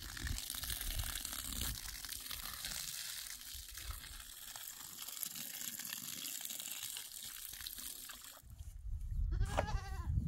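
Water running out of a garden hose in a steady hiss, stopping about eight seconds in. Near the end a single bleat.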